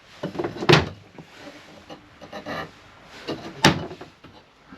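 Doors being opened and shut inside a travel trailer's bathroom, with two sharp knocks, one about a second in and one near four seconds in, and light handling clatter between them.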